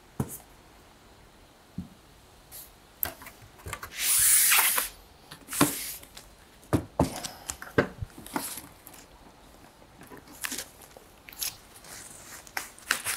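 Unboxing handling noises from a computer monitor's packaging: scattered knocks and clicks as parts are handled and set down, with plastic wrapping rustling. A longer burst of rustling or tearing comes about four seconds in.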